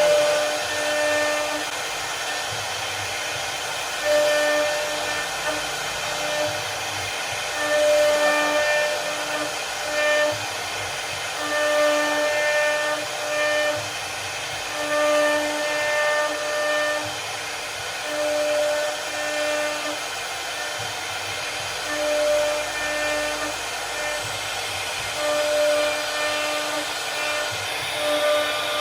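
CNC router spindle carving wood: a steady cutting hiss with a pitched whine that swells and fades every second or two as the bit moves through the pattern.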